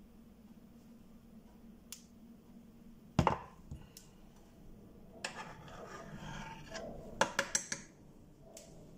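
A metal cooking pot is set down with a sharp knock on a glass-ceramic cooktop about three seconds in. Then comes a stretch of rubbing and scraping on the hob, and a quick run of sharp clicks of pot against cooktop near the end.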